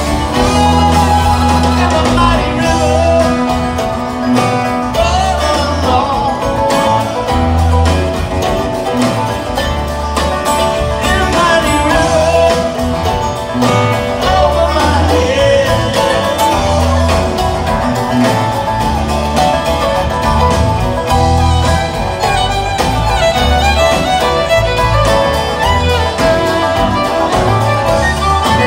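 A string band playing live: fiddle leading over acoustic guitar, banjo and upright bass in a steady bluegrass-style groove.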